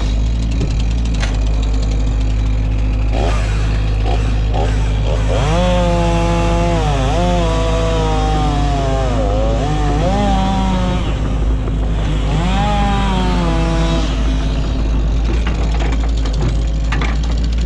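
Heavy machinery running with a steady low engine drone. Over it, for several seconds in the middle, a higher motor note rises and dips repeatedly as if under changing load, and there are scattered knocks and cracks of wood.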